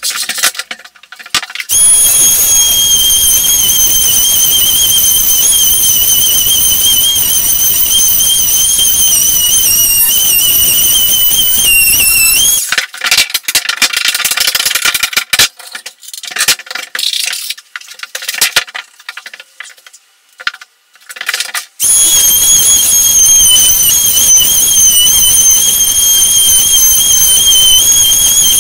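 A high-speed electric motor, a corded power tool, runs with a steady high-pitched whine over a rushing hiss. About 12 seconds in it dips in pitch and stops, giving way to irregular clattering and knocking, and it starts up again a little past halfway.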